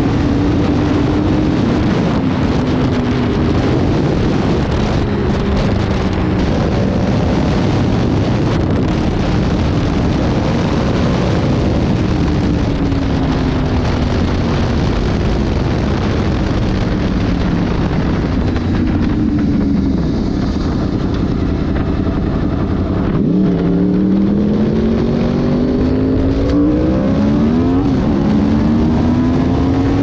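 Inline-four sportbike engine heard at speed with heavy wind rushing over the microphone. The engine note rises and falls with throttle and gear changes, and near the end the revs dip sharply and then climb quickly several times.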